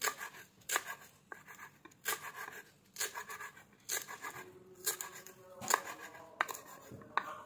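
Kitchen knife slicing through a spring onion and striking a wooden cutting board, in sharp separate cuts about one a second.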